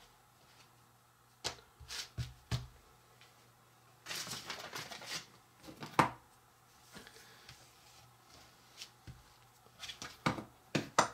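Scattered light clicks and taps from hands and utensils handling soft dough, with a short rustling scrape about four seconds in and a sharper click about six seconds in.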